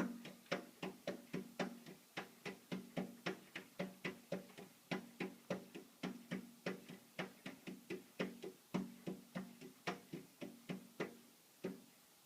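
Rapid, even knocking on something hollow and resonant, about three knocks a second, each with a short ringing tone, stopping near the end.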